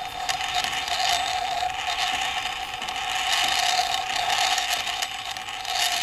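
Metal lathe running steadily under power at slow speed, spinning a heavy welded shaft: a constant whine with a rushing, scraping noise over it.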